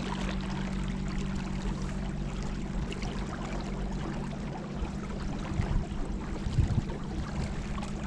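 Boat motor running with a steady hum over the rush of water along the hull, with a few low bumps a little past the middle.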